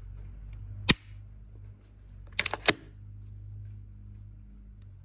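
Glock pistol being dry-fired and handled: one sharp metallic click of the trigger breaking about a second in, then a quick run of three or four metallic clicks about a second and a half later.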